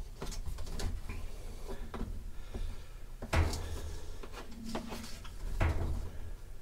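Scattered light knocks and clunks from hands working behind a washing machine, among its hoses and fittings, with two louder knocks about three and a half and five and a half seconds in.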